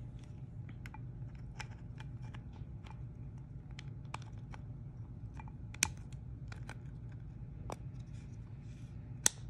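Small plastic clicks and taps as a Mercedes FBS3 smart key's plastic shell and end cover are worked back together by hand, with two sharper clicks, one about six seconds in and one near the end, over a faint steady hum.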